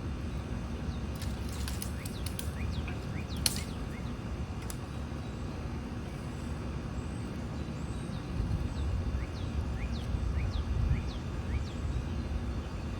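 Outdoor ambience: a steady low rumble like a distant engine or wind, a few sharp clicks with one louder snap a few seconds in, and short bird chirps, once near the start and as a run of several chirps toward the end.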